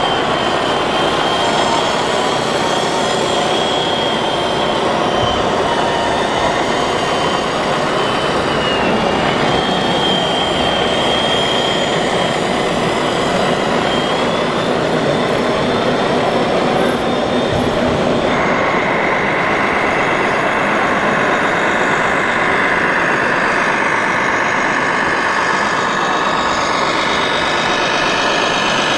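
1/14-scale radio-controlled model trucks and construction machines running: a steady mechanical noise with thin whining tones that shift in pitch. The sound changes abruptly about eighteen seconds in.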